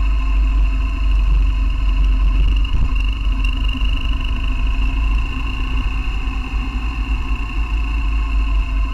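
BMW R1200GS boxer-twin engine running steadily as the motorcycle rides along, under a heavy, unsteady low rumble.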